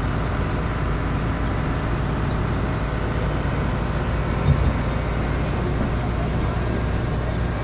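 Open-sided tram running along the road, a steady low rumble of the running gear, with a single knock about four and a half seconds in.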